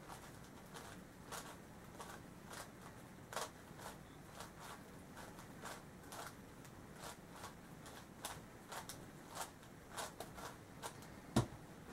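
New stickerless plastic megaminx, a Yuxin Little Magic, being turned quickly during a speedsolve: irregular light plastic clicks and clacks from its faces turning, several a second, with one louder knock near the end.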